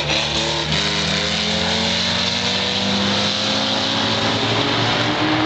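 Several super banger race cars, mostly 3-litre, running hard around the oval together, their engine notes overlapping, some rising and others falling as the cars accelerate and back off. Very noisy.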